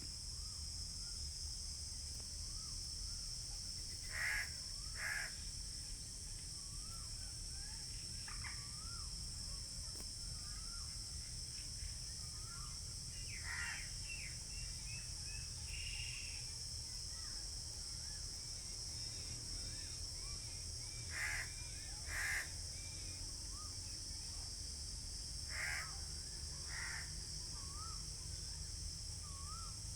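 Crows cawing, mostly in pairs of harsh calls a second apart, over a steady high insect drone. Small birds chirp throughout, above a steady low rumble.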